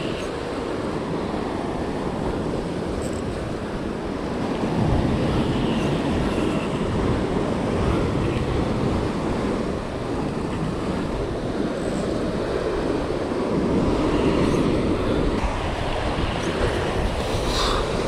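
Steady wind buffeting the microphone over churning water from a moving boat's wake.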